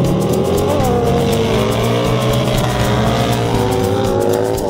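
Two drag-racing motorcycles revving hard and accelerating away from the start line. The engine pitch dips about a second in and again near the end.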